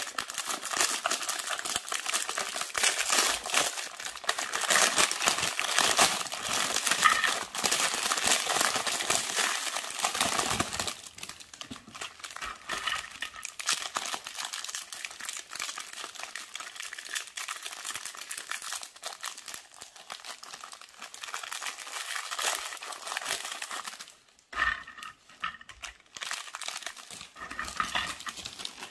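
Plastic biscuit wrappers crinkling as they are torn open and handled. The crinkling of the printed packet is louder for the first ten seconds or so; a clear plastic wrapper then crinkles more softly, with a brief pause near the end.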